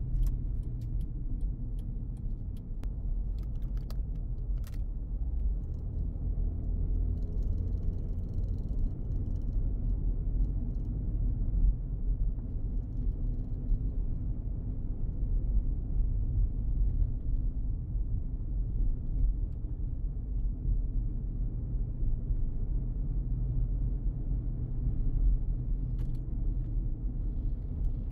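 Steady low rumble of a car driving at street speed, from road and engine noise, with a few light clicks in the first few seconds.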